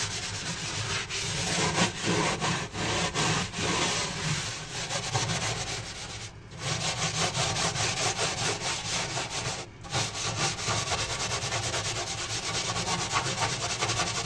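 Steel wool scourer scrubbing baking soda paste over burnt-on grease on an oven floor: a continuous scratchy rubbing made of quick back-and-forth strokes, with light pressure. It breaks off briefly twice, about six and a half and ten seconds in.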